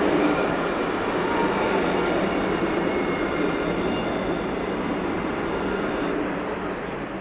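Light-rail tram passing close by: a loud, steady rumble with a faint high whine, fading away over the last second or so.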